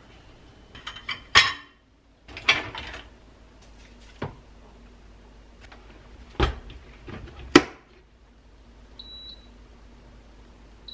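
Dishes clattering and sharp knocks as a countertop dishwasher is loaded and its door pushed shut, followed about nine seconds in by a short beep from its touch control panel.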